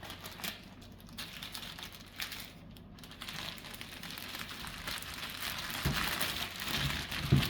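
Kitchen packaging crinkling and rustling as it is handled, with a couple of light knocks near the end.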